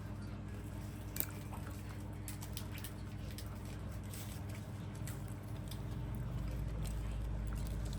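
A person chewing and biting food close to the microphone, with scattered small wet clicks and one sharper click about a second in, over a steady low hum.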